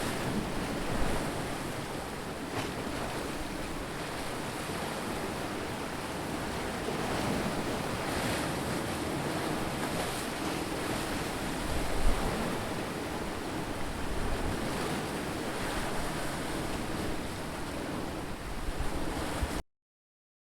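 Ocean surf washing in continuously with slow swells in level, then cutting off abruptly into silence about a second before the end.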